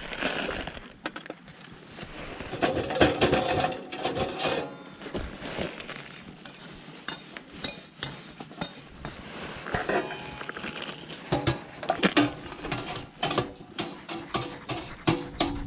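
Metal clinking and clanking as a folding box-type wood stove is taken apart and packed: many short, irregular knocks and rattles of its metal panels and parts.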